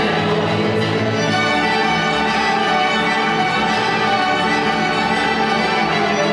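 Folk orchestra of flutes, acoustic guitars, double bass, cello and trumpet playing an instrumental passage between sung verses.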